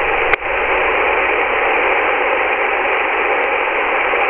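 Steady hiss of CB radio static from the receiver's speaker, with a sharp click about a third of a second in; no readable signal comes through from the weak station.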